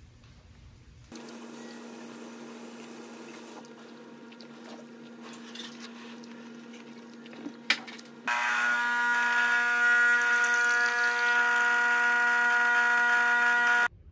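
A steady electrical hum. A sharp click comes a little past halfway, then from about eight seconds in a much louder hum of several steady tones with hiss, which cuts off suddenly near the end.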